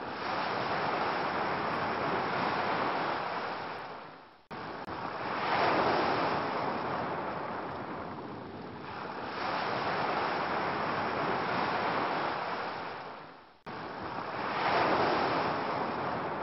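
Ocean waves washing ashore, swelling and ebbing every few seconds. The surf fades out and restarts abruptly twice, about four and a half seconds in and again later on, like a looped recording.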